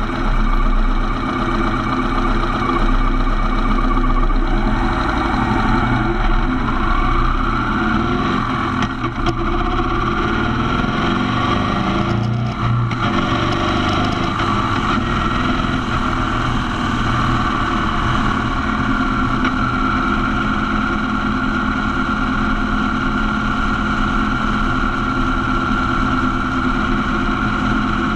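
Motorcycle engine idling while stopped in traffic, then pulling away and running steadily along the road.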